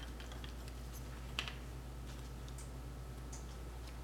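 Faint small clicks and rustles of hands handling a wooden Kay Bojesen toy monkey while threading string through its arm, with one sharper click about a second and a half in, over a steady low hum.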